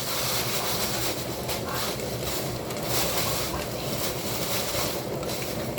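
Cornmeal-coated fish frying in hot oil: a steady, even sizzle.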